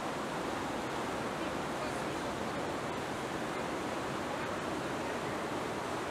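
Steady, even rushing of flowing water, unbroken and without distinct splashes.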